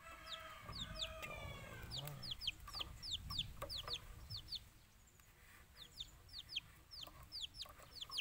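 Chickens calling: a steady run of short, high, falling peeps, several a second, with a longer, lower call in the first two seconds.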